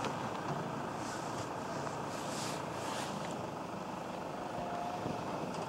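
Steady outdoor background noise: an even rumble and hiss with no distinct event, and a few faint hisses in the first half.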